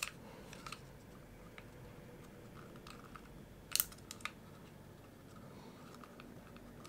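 Faint small clicks and taps of a plastic airsoft pistol frame and its small parts being handled while the magazine release spring is worked back into its slot by finger, with a sharper couple of clicks a little over halfway through.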